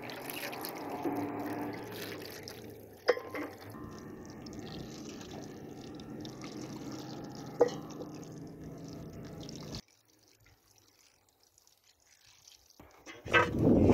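Water pouring and trickling from a plastic jug over raw chicken feet in a metal tray, with two sharp knocks along the way. About ten seconds in the sound stops, and a louder noise starts near the end.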